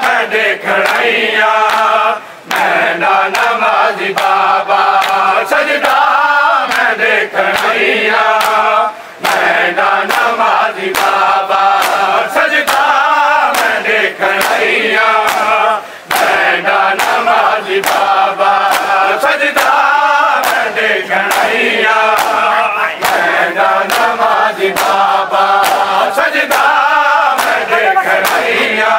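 A crowd of men chanting a mourning nauha in unison, loud and continuous, with repeated sharp slaps of hands beating on bare chests (matam) keeping time beneath the singing.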